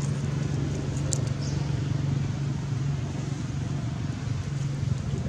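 A steady low motor hum, like a vehicle engine running, with a single short click about a second in.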